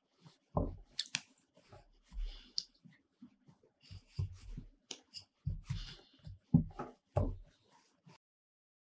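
Wooden rolling pin rolling back and forth over bread dough on a mat: irregular soft thumps and knocks as the pin moves and is repositioned, with a few light scrapes and clicks. It stops abruptly near the end.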